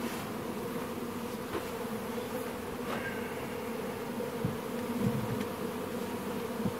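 A swarm of Carniolan honeybees buzzing steadily around the hive, with a few soft knocks from the wooden top cover being set in place about halfway through.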